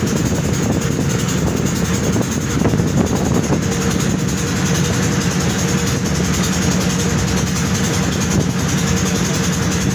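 Boat engine running at a steady speed, a constant low drone with a faint steady hum above it.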